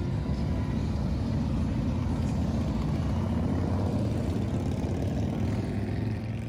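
A large group of motorcycles roaring by: a steady deep rumble of many engines that fades away near the end.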